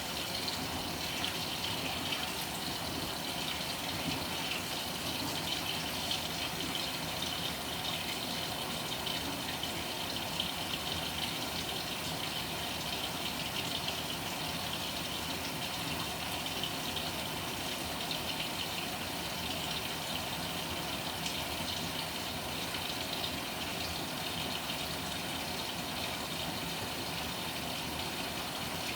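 Panasonic NA-FA100H9 top-loading washing machine mid-cycle, water rushing and churning steadily in the tub with a low mechanical hum underneath.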